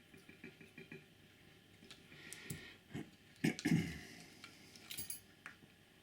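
Small clicks and light knocks from the parts of a model locomotive's chassis and small tools being handled, with a louder cluster of knocks a little past halfway.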